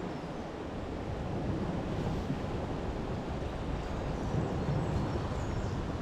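Steady wind buffeting the microphone, mixed with the wash of sea surf.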